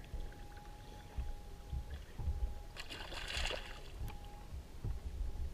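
Water sloshing and lapping low and steady, with a short splash about three seconds in: a small hooked trout thrashing at the surface as it is brought in.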